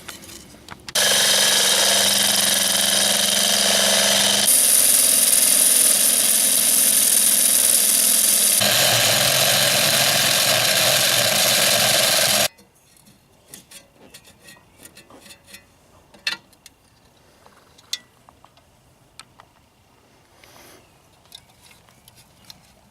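Power drill with a 3/4-inch bit boring a hole through the van's sheet-metal fuel door. It runs loud and steady for about eleven seconds, changing pitch twice, then stops abruptly. Faint clicks and handling knocks follow.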